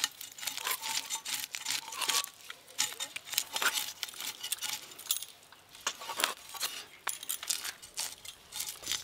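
Small pond fish being cleaned and cut on a curved boti blade: an irregular run of short scraping and clicking strokes.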